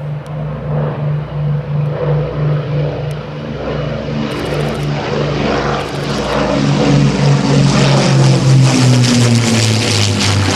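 de Havilland Mosquito's twin Merlin V12 piston engines droning with a pulsing beat, growing louder as the aircraft approaches. The pitch drops in the last couple of seconds as it passes overhead.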